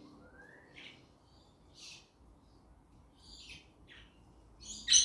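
Pet budgerigars (budgies) chirping in short, scattered high calls, one rising in pitch just after the start, with a louder burst of chirps near the end.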